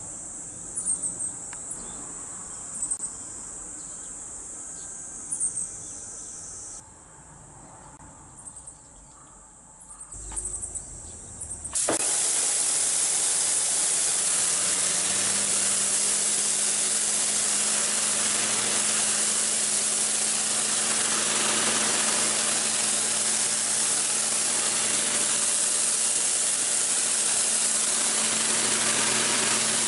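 A high-pressure washer starts suddenly about twelve seconds in and then runs steadily, a loud hiss of spray over a low, even motor hum. Before it starts there is only a quieter background with a few faint high chirps.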